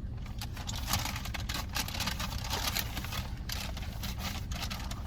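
A bag rustling and crinkling in quick, irregular bursts as food is handled and packed into it, over a steady low hum.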